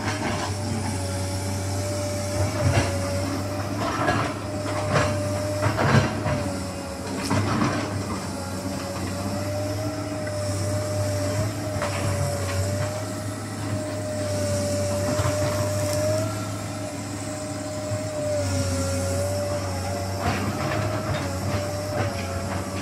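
Komatsu PC210 crawler excavator's diesel engine running steadily under load, with a constant high whine over the low engine hum. Sharp cracks and knocks of breaking branches and brush come every second or two as it clears vegetation.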